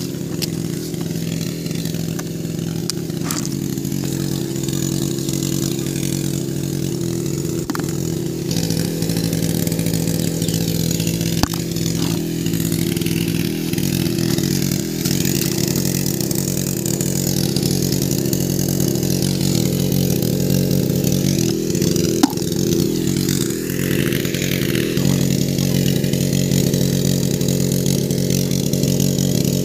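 An engine running steadily at one constant speed, with a few faint clicks on top.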